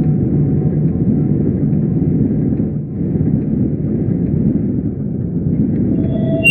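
Low, steady rumbling drone built from a field recording of a car park elevator and shaped into sound art. A higher steady tone comes in near the end.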